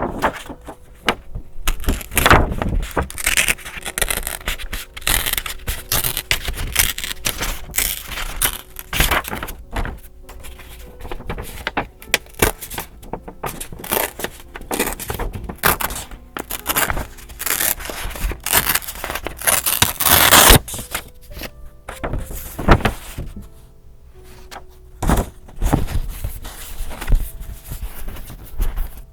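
Paper and journaling materials being handled up close, rustling, scraping and crinkling in an irregular run of bursts that is loudest about twenty seconds in. Faint background music plays underneath.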